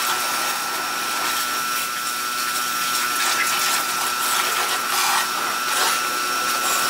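Pressure washer spraying a high-pressure water jet over a scooter to rinse off the foam: a steady hiss of spray with a constant high whine from the washer's motor and pump.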